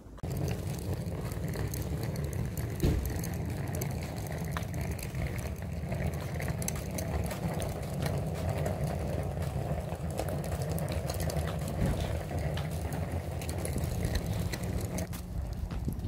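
Wind rumbling on the microphone of a camera carried along a street, steady throughout, with scattered faint clicks and crackles.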